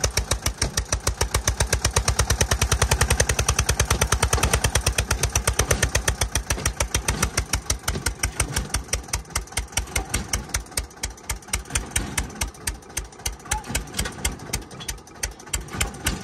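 Eicher 242 tractor's diesel engine running close by at low revs, a chugging beat of distinct, evenly spaced exhaust pulses that slows and softens somewhat over the second half.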